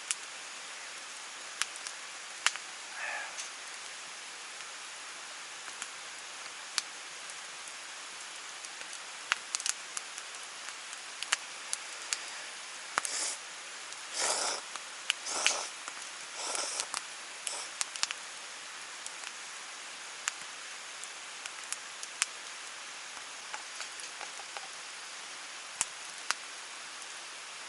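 A person eating curry ramen: several short slurps of noodles near the middle, with scattered light clicks of utensils, over the steady rush of a nearby stream.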